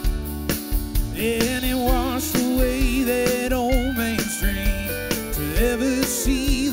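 Country band playing live: drums, bass, guitar and pedal steel, with a lead line that slides and wavers in pitch over a steady drum beat.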